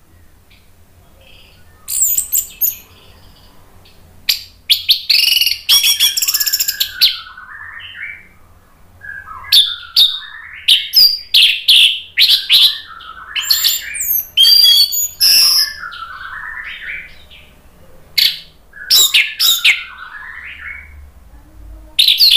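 Orange-headed thrush singing in full voice: a loud, varied song of sharp high notes, rapid trills and lower warbling runs, broken by short pauses, starting about two seconds in.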